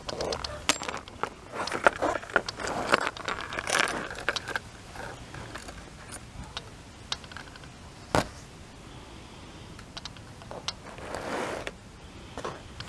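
Hands handling a hand-painted spiral-bound book: the paper and card rustle and scrape, with light metallic clinks and jingling. The sounds come thick in the first four seconds, then a single sharp click about eight seconds in and a short rustle a few seconds later.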